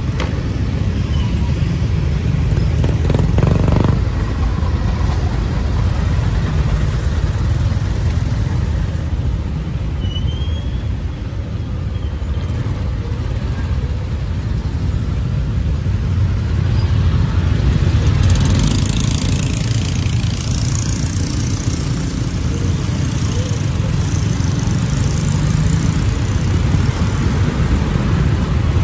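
Busy street ambience: a steady low rumble of passing motorbikes and cars, with a brighter, hissing stretch of noise about two-thirds of the way through.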